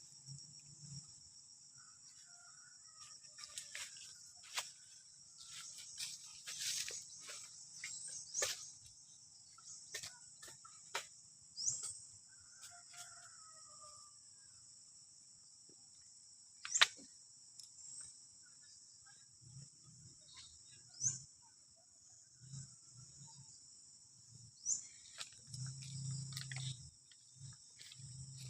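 Steady high-pitched chirring of insects, with scattered sharp clicks and a few brief low rumbles.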